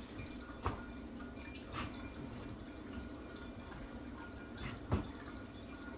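Three light taps of a spirit level being set against a wooden shelf board, over a faint steady room hum.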